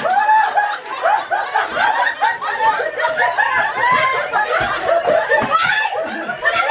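A roomful of people laughing loudly together, many voices overlapping.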